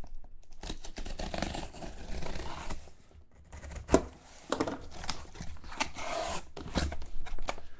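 Packing tape on a cardboard case being slit with a utility knife and torn open, then the cardboard flaps scraping and rustling as they are pulled apart. There is one sharp knock just before four seconds in.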